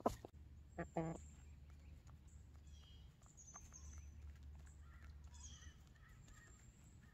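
Hens foraging in hay: one short, soft cluck about a second in, with scattered small ticks from pecking and scratching in the straw and faint high chirps of wild birds.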